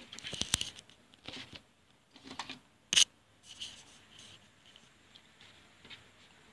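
Light rubbing and scraping with scattered small clicks, several close together at the start and one sharp, loud click about three seconds in.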